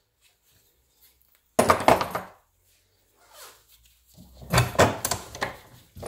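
Two short bursts of metal knocking and clinking as the brass steam-valve body and its parts are handled and the valve is clamped in a bench vise, the first about a second and a half in, the second near the end.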